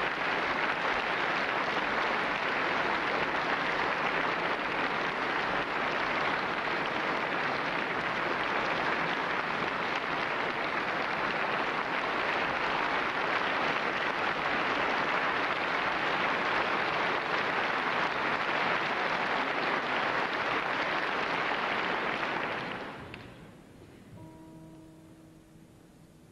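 Audience applause, steady and dense for about twenty-two seconds, then dying away quickly; a few quiet guitar notes sound after it near the end.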